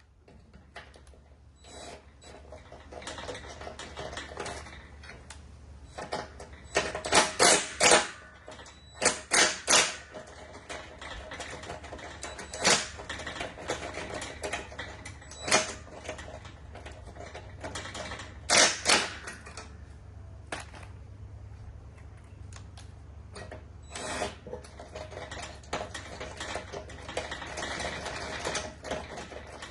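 Hand tools working on a riding-mower deck spindle: rapid clicking, like a ratchet wrench, mixed with several louder metal clanks.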